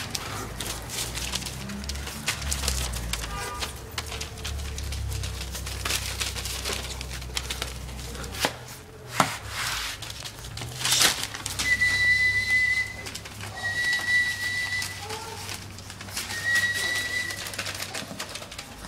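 Long-haired Chihuahua puppies scuffling on newspaper inside a wire playpen, with many small clicks and rattles. Three steady high whistling tones, each about a second long, come in the second half.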